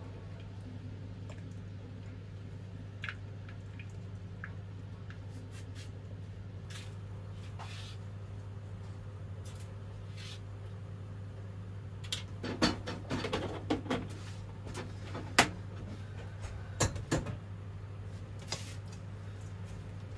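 Kitchenware being handled: metal bowls and utensils knocking and clattering, with a busy run of sharp knocks in the middle and a few lighter clicks before and after, over a steady low hum.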